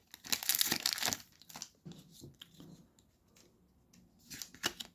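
Foil-wrapped wax pack of 1992 Leaf baseball cards being torn open and its wrapper crinkled, loudest in the first second, then a few faint crackles as it is peeled back.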